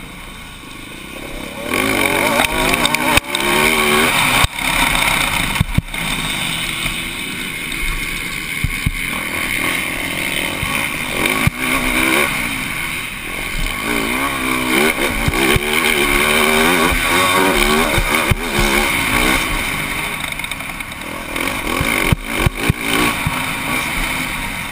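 Motocross bike engine heard from the rider's helmet camera at racing speed. The revs climb and fall back again and again as the throttle is worked. A constant rush sits over it, with occasional sharp knocks.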